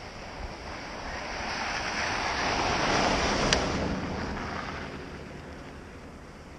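A vehicle passing on a snow-covered, slushy road: a rush of tyre noise that swells, peaks about halfway through, and fades away.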